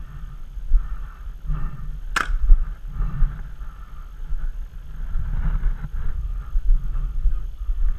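Footsteps and rustling gear of a paintball player walking, picked up by a body-worn action camera as a low rumble with irregular thuds. One sharp crack about two seconds in.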